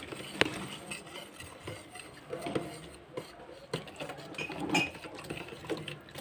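Wire balloon whisk beating a runny batter in a clear container, the wires swishing through the liquid and clicking lightly and irregularly against the sides.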